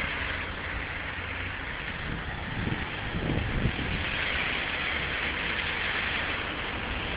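Steady hiss of traffic on a wet street in the rain over a low rumble, heard from a moving bicycle. A few louder low knocks come about three seconds in.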